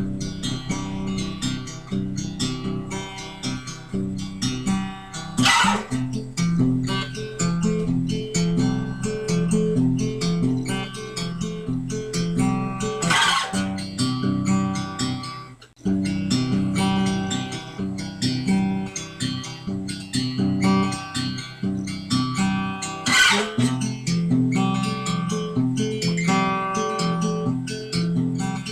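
Instrumental guitar music, plucked and strummed, with a brief break about sixteen seconds in.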